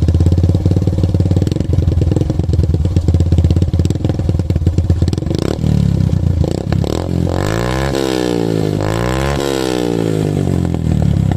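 Yamaha FZ-S single-cylinder engine running through an aftermarket Akrapovic exhaust, loud and pulsing at idle. About halfway through the throttle is blipped, and the revs climb and drop back twice.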